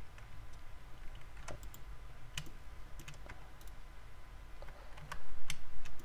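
Computer mouse clicks and keyboard key presses: scattered, irregular single clicks over a steady low hum, getting louder about five seconds in.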